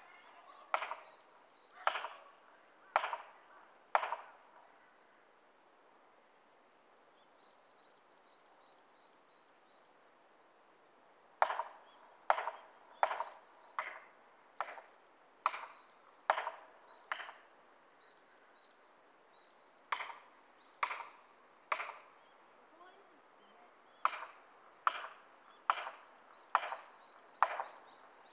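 Hammer strikes driving a felling wedge into a tree's back cut, one sharp blow about every second in four runs with short pauses between them. The tree is not yet going over because its hinge is tough after rain.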